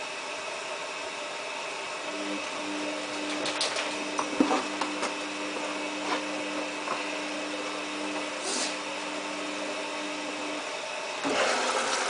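Samsung WF8804RP front-loading washing machine tumbling a load in its pre-wash, with a few soft knocks from the drum. A steady low hum comes in about two seconds in and stops near the end. Just before the end the detergent drawer is pulled open, a louder sliding noise.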